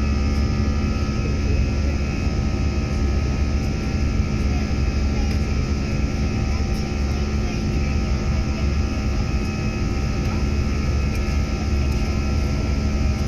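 Airliner cabin noise during the climb after takeoff: a steady drone of engines and rushing air with a few constant hums, heard from inside the cabin.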